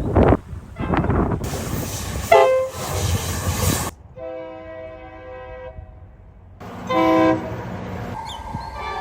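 Diesel locomotive air horns sounding in several short clips cut together. A short blast about two and a half seconds in comes over the rumble and hiss of a moving train. A steadier horn follows a little later, then a louder short blast, and a horn that holds on near the end.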